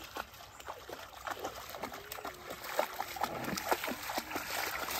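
Shallow creek water splashing and sloshing under wading legs and paws, a run of irregular small splashes and drips over the trickle of the stream.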